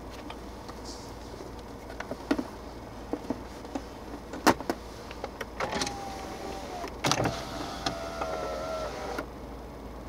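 Car power window motor whining twice, first for about a second and then for about two seconds, with clicks of the switch before and between the runs, over a steady in-cabin hum.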